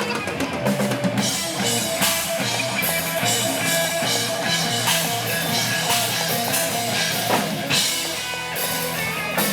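Rock music with a drum kit, bass and guitar, playing a steady beat.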